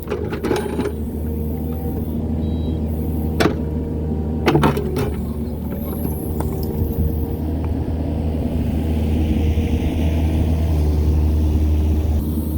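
Kubota KX71 mini excavator's diesel engine running steadily under load, with a few sharp clanks, two of them loud a few seconds in. The engine grows louder in the second half.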